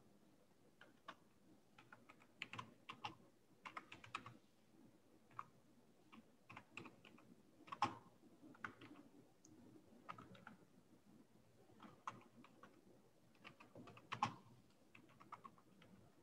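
Faint typing on a computer keyboard: irregular keystrokes, some in quick runs, with a couple of louder strokes about halfway through and near the end.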